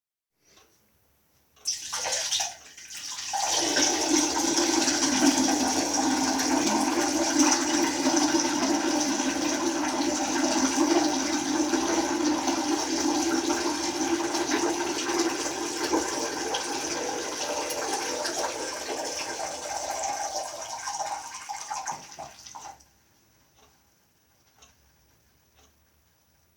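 Water rushing: a short burst about two seconds in, a moment's dip, then a steady rush for about twenty seconds that stops fairly suddenly.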